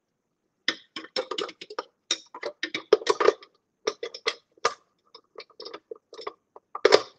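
Hard plastic food processor parts clicking, knocking and rattling against each other as an attachment is tried in the bowl. It is an irregular run of sharp clicks, loudest about three seconds in and near the end.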